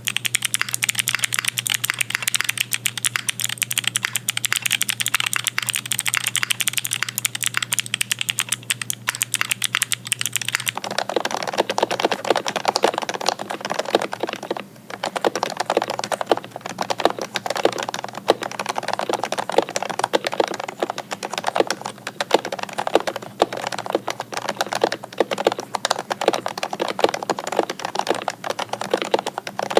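Fast continuous typing on custom mechanical keyboards. For the first ten seconds or so it is a bright, higher-pitched clack over a faint low hum. Then, about 11 seconds in, the sound switches abruptly to a deeper-sounding board.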